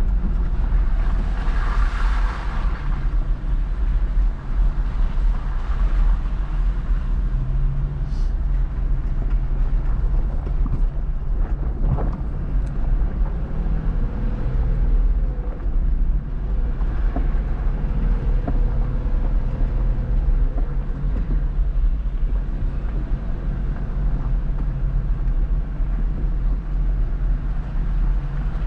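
Off-road vehicle engine running steadily, with a constant low rumble.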